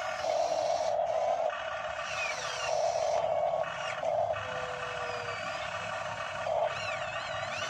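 Electric motors of RC model Kobelco excavators whining in on-off spurts as the booms and buckets move through wet mud. The whine starts and stops repeatedly.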